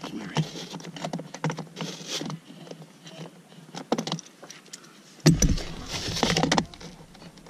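Small metallic clicks and rattles of a 10 mm socket being turned by hand to unscrew the accelerator pedal's mounting bolt. A louder thump comes just after five seconds in.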